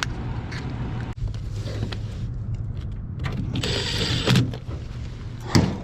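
Rheem air handler running with its electric heat strips energized: a steady low hum, with scattered handling clicks, a rustle of parts about four seconds in and a sharp knock near the end.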